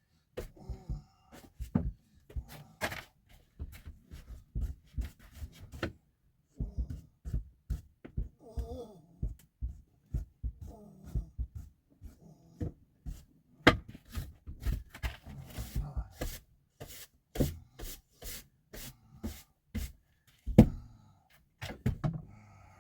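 Broom sweeping snow off a deck: a quick, irregular run of brushing strokes, several a second.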